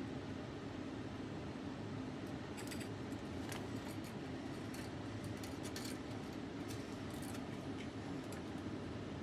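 Scattered light clicks and taps of small metal hand tools working on a circuit board, bunched in the middle few seconds, over a steady low hum.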